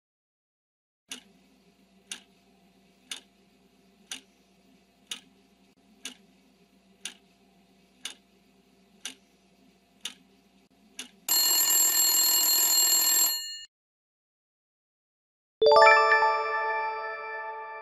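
Countdown-timer sound effect ticking about once a second for roughly ten seconds. A ringing alarm then sounds for about two seconds as time runs out. Near the end a single bell chime rings and fades as the correct answer is revealed.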